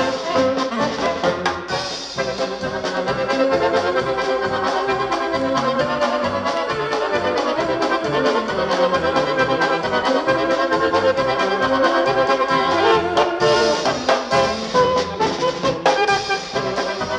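Polka band recording playing an instrumental passage: brass and accordion carry the tune over a steady bouncing bass beat.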